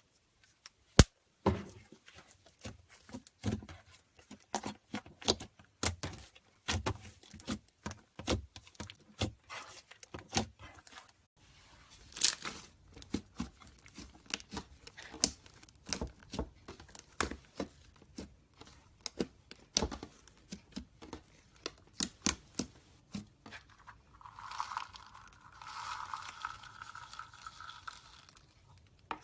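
Slime being squeezed and poked by hand, giving irregular sticky clicks, pops and crackles. Near the end a steady tone sounds for a few seconds.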